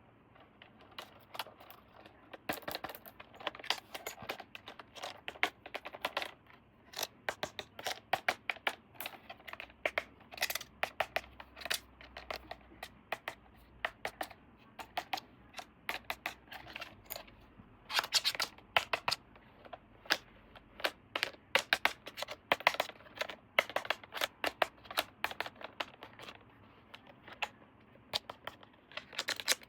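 Toy packaging being handled and opened by hand: a dense, irregular run of clicks, scratches, rustles and tearing.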